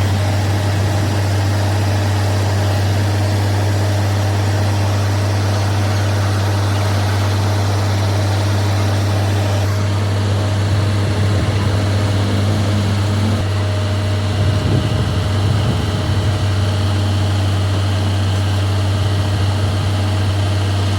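An engine running steadily at idle, a loud constant low hum. About two-thirds of the way through, the low rumble briefly turns uneven.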